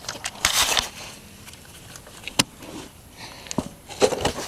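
Hand handling noises at an engine's oil drain valve as its small cap is worked off: a rustling scrape about half a second in, one sharp click near the middle, and a cluster of clicks and knocks near the end.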